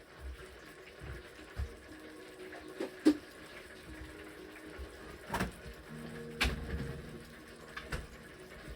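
Food sizzling in a hot pan, a steady hiss, with several sharp knocks and clinks of utensils and cookware; the loudest knock comes about three seconds in.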